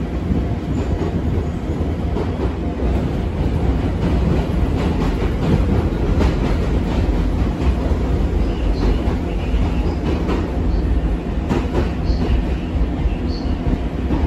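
Odakyu 8000 series electric commuter train running at speed, heard from inside the passenger car: a steady low rumble of wheels on rail, with scattered sharp clicks from the rail joints.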